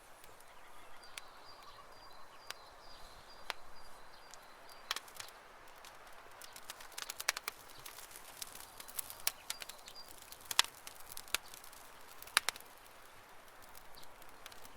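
Wood fire crackling, with irregular sharp snaps and pops that grow more frequent and louder in the second half. A faint high, rapid chirping trill runs in the background for the first few seconds.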